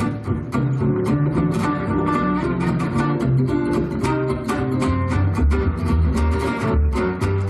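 Selmer-Maccaferri-style gypsy-jazz acoustic guitar played solo, rhythmic strummed chords with picked melody notes and deep bass notes, stopping just before the end.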